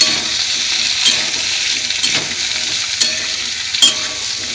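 Chopped onions, potatoes, carrots and tomato sizzling in hot oil in a kadai, stirred with a metal spatula that scrapes and knocks against the pan a few times.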